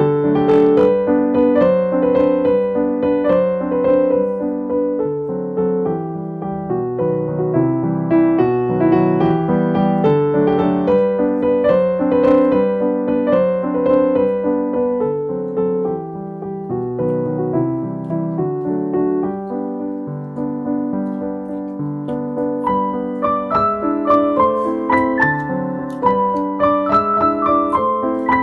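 Background piano music, a continuous flow of notes.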